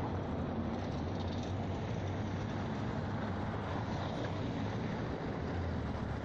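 Steady low rumble of outdoor city background noise, with no distinct events standing out.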